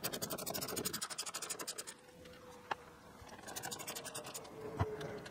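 A ratcheting Torx driver ticking rapidly and evenly as it backs out two T25 screws under a dashboard. There is a short pause partway through, then a single click, a second run of ticking and a soft knock near the end.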